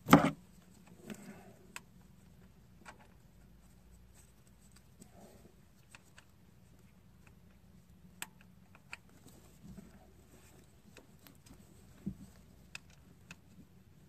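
A loud clunk of a tool on the engine right at the start. After it come faint, scattered clicks and taps of metal as a spark plug is threaded by hand into its plug tube.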